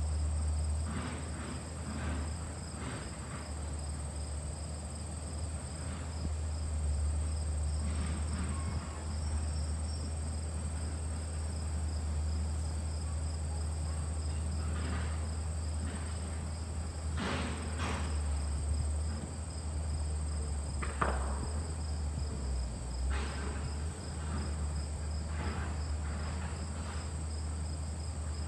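LG air conditioner's condenser unit running under load with a steady low hum, its condenser fan motor newly replaced. Crickets chirp steadily over it, and a few faint clicks and knocks come and go.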